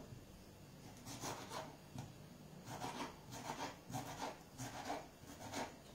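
Knife slicing through a small yellow tomato on a wooden cutting board: a run of short, fairly faint sawing strokes, about three a second, starting about a second in.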